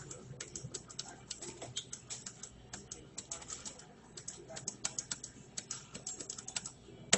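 Rapid, irregular clicking and ticking from a Pennsylvania skill game machine's sound effects during its bonus round, many small pieces bouncing down the screen while the score counts up.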